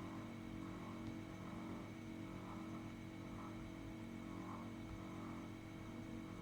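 Faint steady electrical hum made of several steady low tones, with light background hiss and no clear distinct events.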